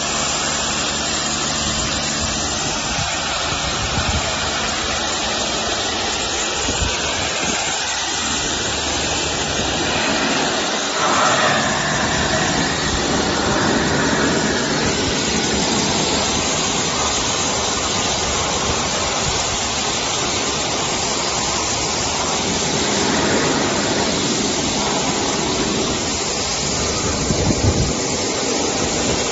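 Pressure washer running and spraying water onto a hard surface, a steady rushing hiss with machine noise beneath it.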